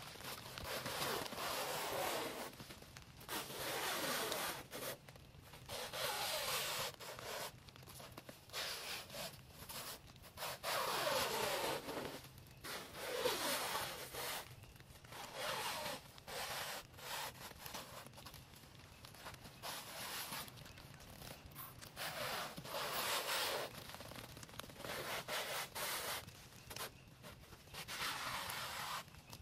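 Clear plastic stretch wrap being pulled off its roll and stretched around tree trunks, in repeated pulls of a second or two with short pauses between.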